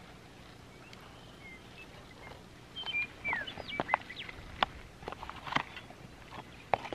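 Wild birds calling with short chirps and gliding whistled notes, busier from about three seconds in, over a faint steady outdoor hiss. A few sharp clicks are scattered among the calls.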